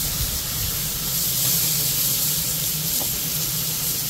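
Black pork sizzling as it grills over an open oak-wood fire: a steady hiss, with a steady low hum underneath.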